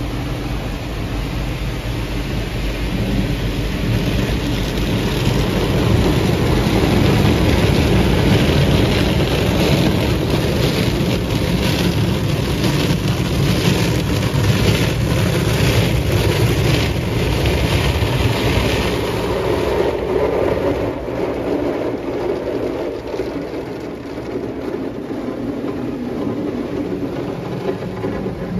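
Automatic car wash heard from inside the car: water spraying and beating on the roof and windows with a steady rushing noise. It is loudest in the middle, then eases off after about twenty seconds.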